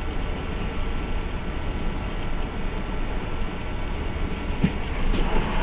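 Steady vehicle rumble, a dense low noise, with a few sharp clicks about four and a half seconds in.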